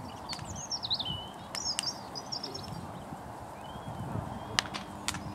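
Thatched roof and timbers of a roundhouse burning, with a steady rush of flame and sharp crackles and pops every second or so, the loudest near the end. A small bird sings high sweeping phrases over it in the first half.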